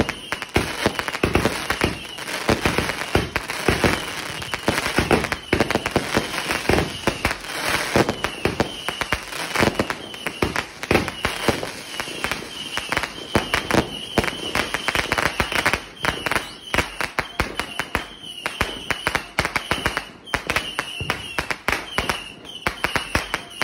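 Rapid-fire aerial firework barrage: a dense, unbroken run of pops and bangs, several a second.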